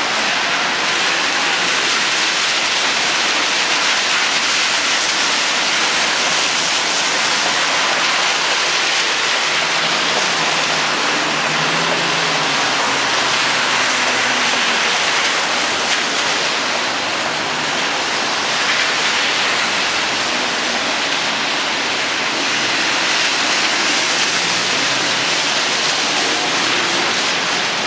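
Steady hiss of rain falling on a city street, mixed with car tyres running over the wet road.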